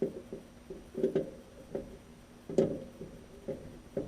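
Short, irregular metallic clicks and taps with a brief ring, from a screwdriver working the screws of a replacement igniter into a gas furnace's sheet-metal burner assembly. The loudest knock comes about two and a half seconds in.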